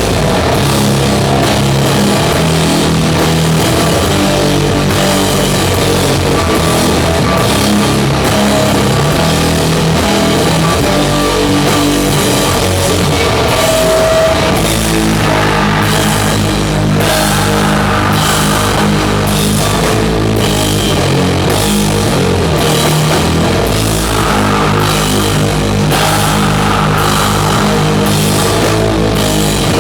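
A doom metal band playing live and loud: heavy distorted guitars and bass under a drum kit. The drum and cymbal hits come more often from about halfway through.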